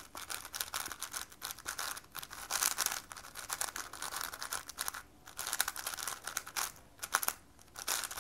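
MoYu AoChuang WR M magnetic 5x5 speedcube being turned fast by hand: rapid, dense clicking and scraping of plastic layers sliding past each other, in quick runs of turns with brief pauses about five seconds in and again near the end. These are the first turns of a brand-new cube straight out of the box.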